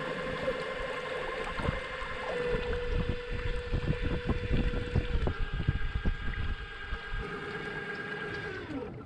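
Small electric trolling motor pushing a kayak: a steady whine that steps down in pitch about five seconds in and winds down near the end, with wind rumbling on the microphone underneath.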